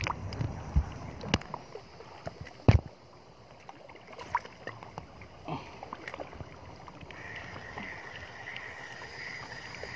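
Water lapping and sloshing close to the microphone, with a few sharp knocks in the first three seconds as the camera is handled. From about seven seconds a steady high buzz sets in over the water.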